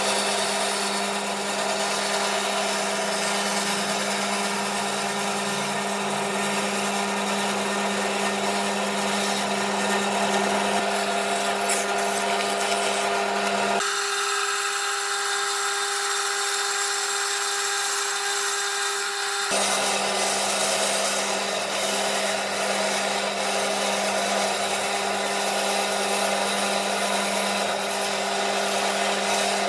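Electric power tool motor running steadily in a woodshop, with a constant hum under a hissing, whirring noise. For about five seconds in the middle the low hum cuts out abruptly, leaving only the higher hiss, then the full sound returns.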